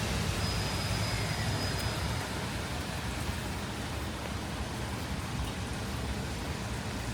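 Steady rain, with a passing vehicle's low rumble on wet road fading over the first couple of seconds, leaving the hiss of rain and distant traffic. A faint high whine sounds briefly in the first two seconds.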